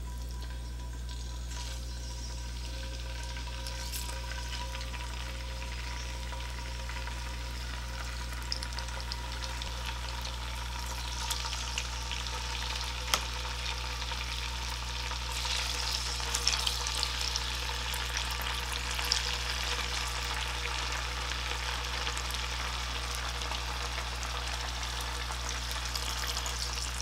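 Slices of firm tofu sizzling in hot olive oil as they are laid into the pot one by one. The sizzle grows louder partway through as more pieces go in, with scattered sharp pops.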